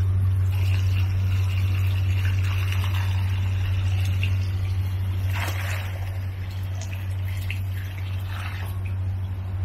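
Water trickling and splashing in a koi pond over a steady low hum, with a stronger splash a little after five seconds in.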